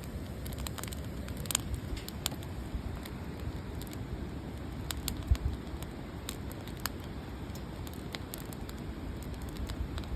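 Wood campfire crackling, with irregular sharp pops over a steady low rumble and a louder thump about five seconds in.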